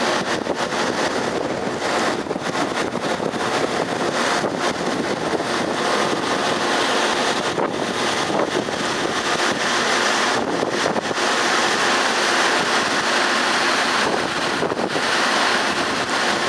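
Steady wind blowing across the microphone, a rushing noise with a few brief dips, high on an offshore crane.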